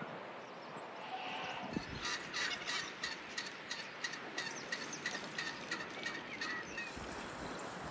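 Farmyard poultry calling: a quick run of short, evenly spaced calls, several a second, starting about two seconds in and stopping a second before the end.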